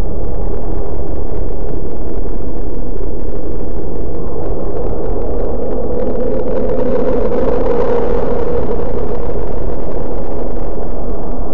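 Synthetic 'space sound' drone: a loud, steady, deep rumble with a hum at middle pitch. The hum grows a little stronger a little past halfway.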